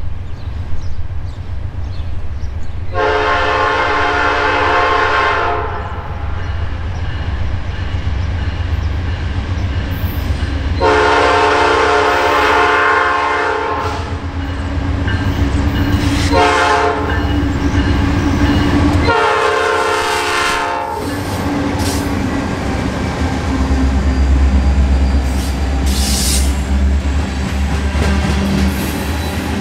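Nathan P5 horn on a Norfolk Southern GE Dash 9-44CW diesel locomotive sounding the long-long-short-long grade-crossing signal as the train approaches. The locomotives' diesel engines then rumble past, followed by loaded grain hopper cars rolling by with a clickety-clack of wheels on rail joints.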